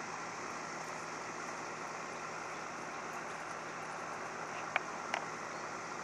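Steady outdoor background hiss with no clear source, and two short sharp clicks close together about a second before the end.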